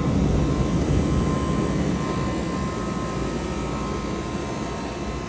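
Steady mechanical rumble with a faint whine, gradually fading.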